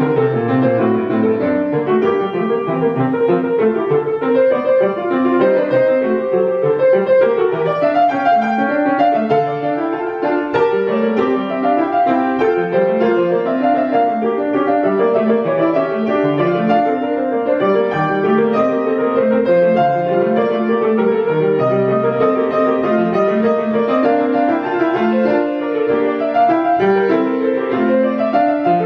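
Grand piano played solo: a continuous classical passage of many moving notes, mostly in the middle register, with no pause.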